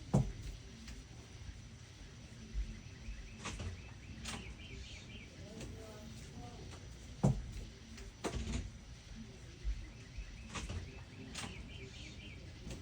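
Rain dripping, with heavy drops striking close by as sharp taps every second or two, the loudest near the start and about seven seconds in. A cricket gives two short runs of chirps, about four seconds in and again near the end, over a low steady rumble.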